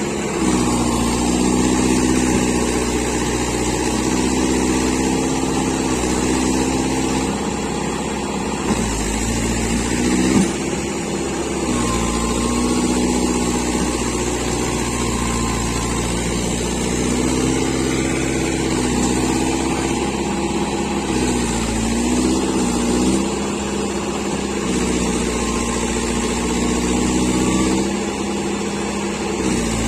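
Tractor engine running steadily under load, its pitch dipping and recovering a few times as the revs change.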